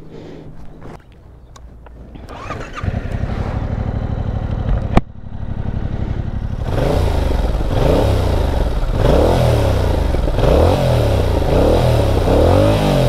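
Yamaha MT-07 (2021) parallel-twin engine on its stock exhaust: the engine sound builds about three seconds in, with a single sharp crack about five seconds in. From about seven seconds in it is revved over and over, roughly once a second, the pitch rising and falling each time. It cuts off abruptly at the end.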